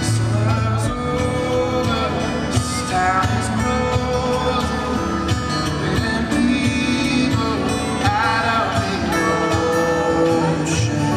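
Live music: a man singing with his own acoustic guitar accompaniment, a few sung phrases over steady strummed and picked chords.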